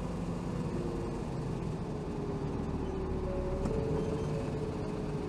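A 2007 Hino Rainbow HR (BDG-HR7JPBE) city bus running with its diesel engine droning steadily. The engine note shifts slightly in pitch about two-thirds of the way through.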